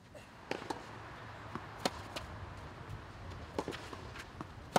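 Scattered faint knocks and taps on a clay tennis court, with a sharper tennis ball strike off a racket near the end.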